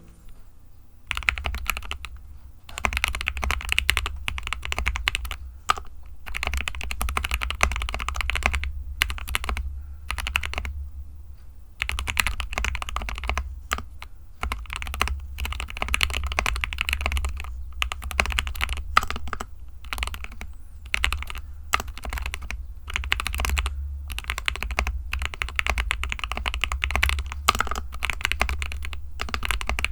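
GK61 60% mechanical keyboard being typed on at speed: a dense run of key clacks that starts about a second in and comes in bursts with brief pauses.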